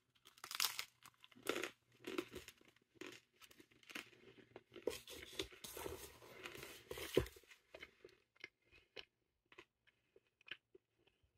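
Faint, irregular crackling and crunching of a crusty bread loaf's crust and crumb as a slice is held, pressed and turned in the fingers.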